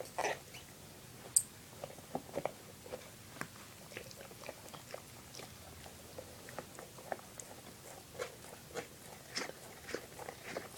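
A pet chewing and crunching on a hard chew object, in irregular bites and crunches, with one sharp click about a second and a half in.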